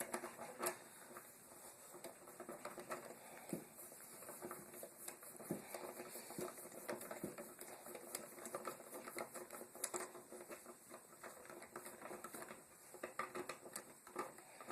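Faint, irregular clicking and scratching of a Phillips screwdriver backing out the two screws that hold an electrical outlet in its wall box.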